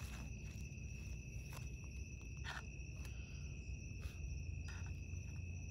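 Crickets trilling steadily in one unbroken high note, with scattered footsteps and small clicks over it.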